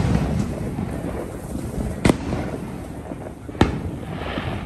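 Fireworks going off: two sharp bangs about a second and a half apart, over steady background noise.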